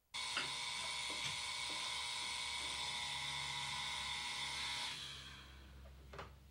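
Electric alarm clock buzzing, a harsh steady buzz that starts suddenly and stops about five seconds in as a hand comes down on the clock. A single short click follows a second later.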